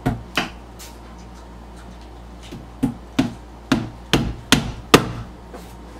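Small hammer tapping small nails into a flat-pack cube organizer's panel. Two or three taps, a pause of about two seconds, then a quicker run of about six blows.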